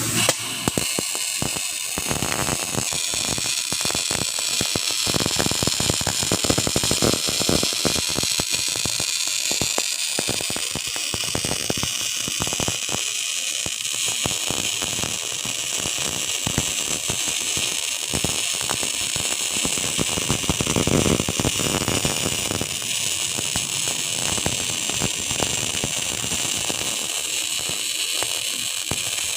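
Electric welding arc burning steadily, with a continuous irregular crackle and hiss and no pause.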